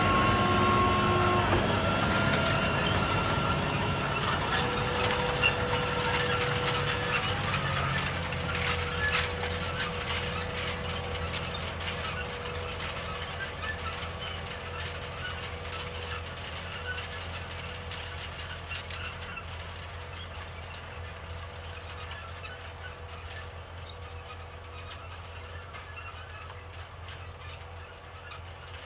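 Case IH Magnum 220 tractor pulling a field cultivator through soil: the engine runs steadily under a clatter of small clicks and rattles, fading gradually as it moves away.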